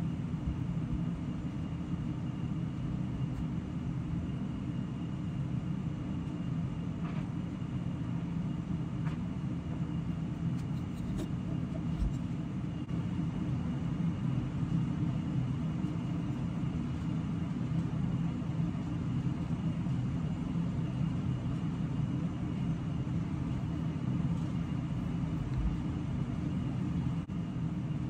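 Steady low rumble of background noise, unchanging throughout, with a few faint ticks.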